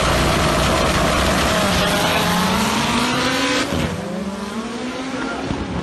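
Turbocharged VW Gol GTI 16V drag car launching at full throttle beside a second car, the engine revs climbing and dropping back once at a gear change. The sound grows quieter after about three and a half seconds as the cars pull away.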